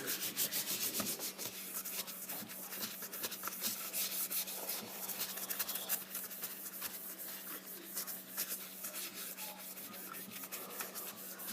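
A cleaning wipe being rubbed back and forth over a laptop keyboard, a rapid, irregular scratchy scrubbing.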